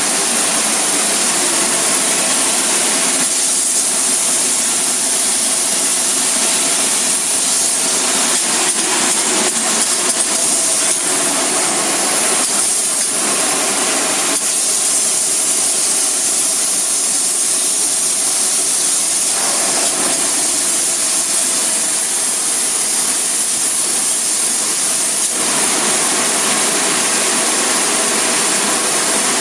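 Spray-foam insulation rig hissing steadily, with a machine hum underneath; the hiss thins and returns a few times.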